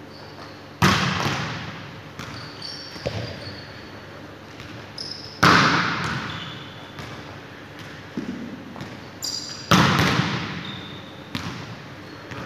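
A volleyball struck hard three times, a sharp slap each time that rings on in a large hall, followed by smaller bounces of the ball on the floor. Short sneaker squeaks on the court floor come in between.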